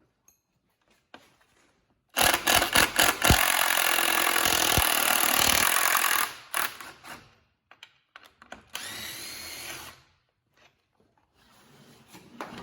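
Power impact gun driving a bolt: one loud run of about four seconds that starts a couple of seconds in with a quick series of hits, then a shorter, quieter burst about two seconds later.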